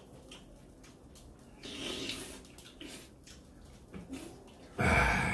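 Soup broth sipped from spoons: quiet sipping and eating sounds, then one loud slurp about five seconds in.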